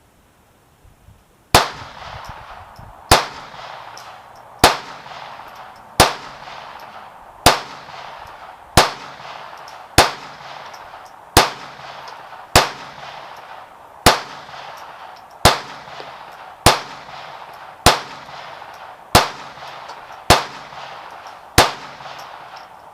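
Kel-Tec P17 .22 LR semi-automatic pistol firing sixteen single shots at a steady pace, about one every second and a half, each with a short ringing tail. Sixteen rounds is a full magazine emptied.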